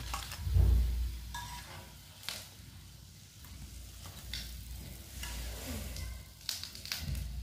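Fried egg halves lifted out of hot oil with a metal spoon and set on a steel plate: a few clinks and scrapes of the spoon over a frying sizzle, with a dull thump about half a second in.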